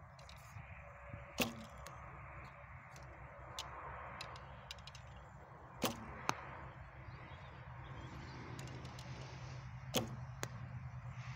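Recurve bow being shot: three sharp bowstring snaps about four seconds apart, each followed about half a second later by a fainter knock.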